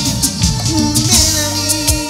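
Live cumbia band playing an instrumental passage: held pitched tones and a moving bass line over a steady percussion beat.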